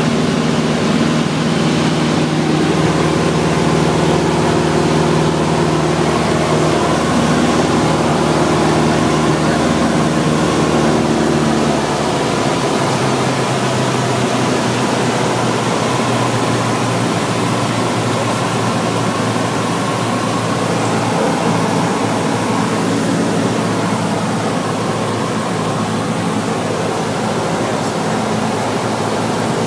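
Light propeller aircraft's engine and airflow droning steadily inside the cabin on the approach to landing. The engine note changes about twelve seconds in.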